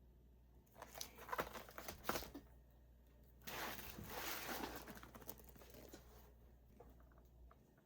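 Packaging handled and unwrapped by hand: a run of clicks and crinkles, then a longer stretch of rustling and tearing about three and a half seconds in.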